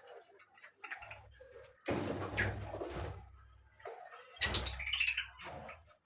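Birds chirping in short calls, broken by two louder rustling bursts, one about two seconds in and the louder one past the midpoint.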